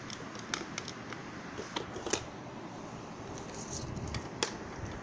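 A few scattered light clicks and knocks over low rustling: plastic toy building bricks being handled and knocked together.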